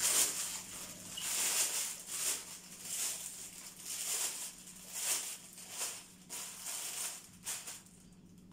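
Clear plastic sheet crinkling and rustling in uneven bursts as it is spread and tucked over a tray of dough balls, thinning out near the end.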